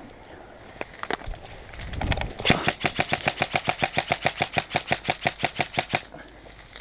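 Airsoft rifle firing: a few single shots, then a long full-auto burst of about ten shots a second lasting about three and a half seconds.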